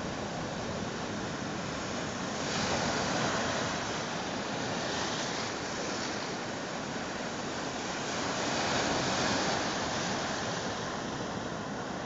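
Sea surf: waves breaking and foamy water rushing through the shallows, a steady wash that swells louder about two to three seconds in and again about eight seconds in.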